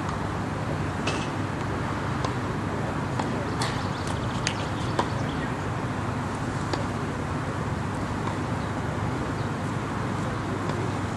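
Steady outdoor background noise at tennis courts, with a low hum and a few scattered sharp clicks and knocks.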